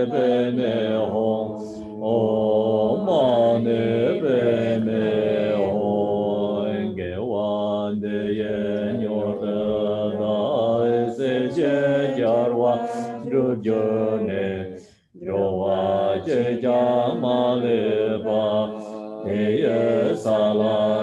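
Tibetan Buddhist monks chanting a prayer together in a low, steady recitation, with a brief pause for breath about fifteen seconds in.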